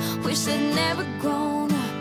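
Background music: a slow pop song with acoustic guitar.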